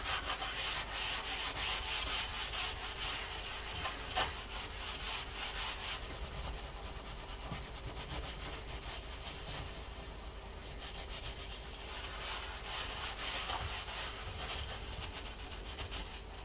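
Paper towel rubbing over a painted board in rapid back-and-forth strokes, wiping wet acrylic paint off the surface. The scrubbing is steady, a little lighter in the middle.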